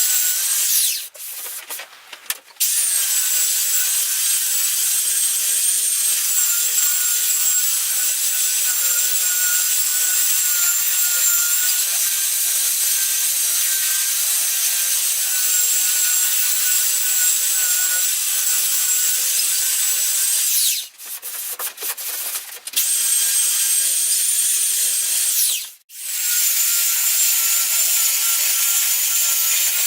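Electric power sander running steadily on wood, its motor giving a high whine over the scratch of the sanding. It stops and starts again three times: about a second in, around two-thirds of the way through, and briefly near the end.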